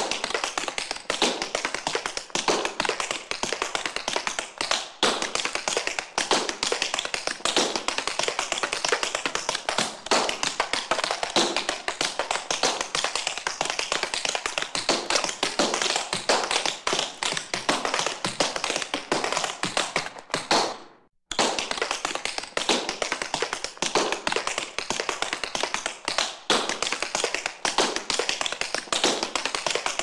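Tap shoes' metal toe and heel plates striking a hard floor in fast rhythmic tap-dance patterns. Around twenty seconds in, the tapping fades out to silence, then starts again abruptly a moment later.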